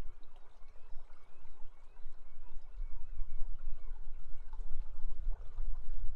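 Steady rush of river water, with a low rumble that grows stronger about halfway through.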